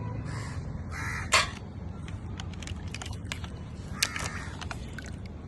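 Cooked green mussel shells clicking and clacking as they are pried open and the meat picked out by hand, with sharper clacks about a second in and again about four seconds in.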